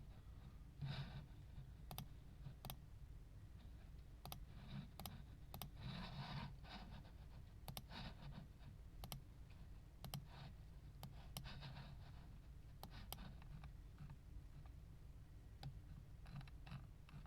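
Faint, irregular sharp clicks, a couple of dozen of them, with a few short soft rustles in between.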